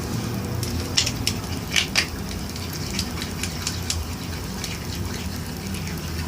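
A utensil stirring a thick shampoo-and-salt slime mixture in a small container, giving irregular sharp clicks and scrapes against the container, loudest about one to two seconds in, over a steady low hum.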